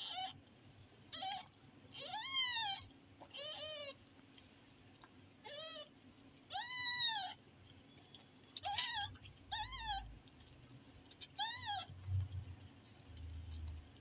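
Newborn kittens mewing: about nine short, high-pitched cries, each rising and falling in pitch, coming irregularly a second or two apart.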